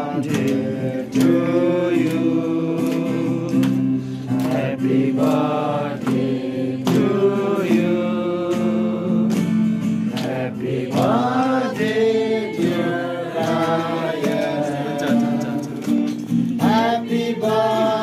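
Music: a group of voices singing a Christian gospel song, with instruments behind them.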